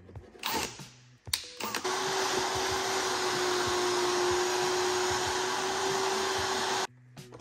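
Shop vacuum running, its hose nozzle sucking up wood shavings from freshly drilled holes. It is a steady whooshing noise with a constant hum. It switches on about two seconds in and cuts off suddenly near the end, after a few short knocks of handling at the start.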